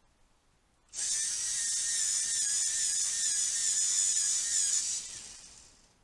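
Small battery-powered electric pencil sharpener grinding a colored pencil: a steady high whir that starts suddenly about a second in and tails off over the last second.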